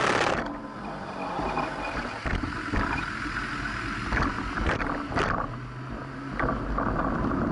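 Wind on the microphone and road rumble from a camera riding on a moving bicycle, with scattered knocks and rattles as it rolls over bumps. Loudest at the very start, then quieter, building again near the end.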